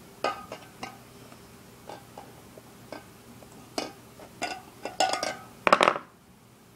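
Irregular metallic clicks and clinks of hand tools and small parts being handled against a BMX wheel, growing louder and more rapid, then stopping about six seconds in.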